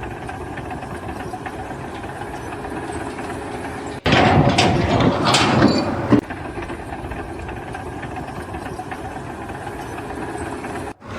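A steady engine running, with a louder, rougher stretch of noise that starts and stops abruptly about four to six seconds in.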